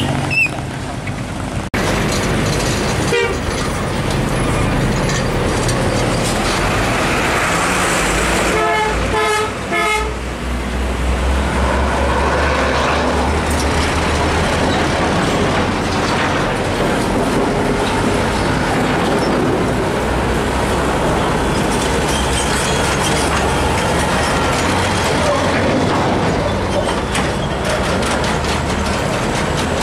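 Heavy road traffic. About nine seconds in, a vehicle horn gives a quick string of toots lasting around a second. After that, the deep diesel rumble of a heavy tractor unit hauling a lowbed trailer past dominates.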